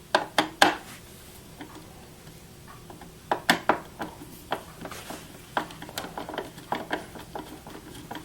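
Phillips screwdriver turning a screw into the casing of a counterfeit detector machine: a series of irregular small clicks and ticks, a few in the first second, then a steadier run from about three seconds in.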